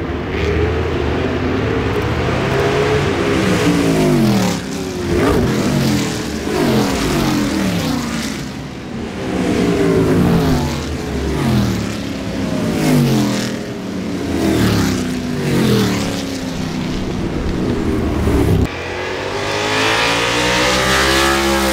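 Formula 5000 racing cars with V8 engines passing one after another, each engine note falling in pitch as it goes by. Near the end one engine note climbs steadily in pitch as a car accelerates.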